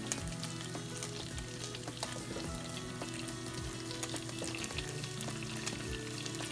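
Gyoza sizzling as they fry in a pan: a steady crackling hiss with many small pops, starting at once at the outset, over background music.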